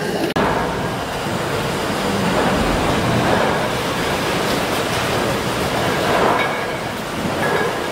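Rotative steam beam engine running: a steady mechanical hiss and rumble that swells roughly every three seconds with the slow stroke.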